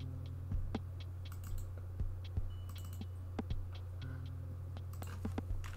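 Scattered clicks of a computer keyboard and mouse, a few a second, turning into a quick run of typing near the end, over a steady low electrical hum.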